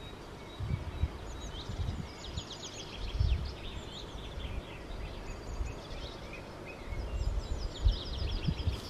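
A hand-cranked drill bores into a birch trunk, making uneven low rumbling and knocks. Over it a songbird sings quick, high series of short falling notes, twice.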